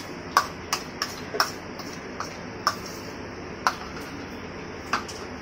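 A wooden spatula tapping and knocking against the rim of a plastic bowl and a kadai while ground coconut paste is scraped out into the pan: about nine sharp taps at uneven intervals.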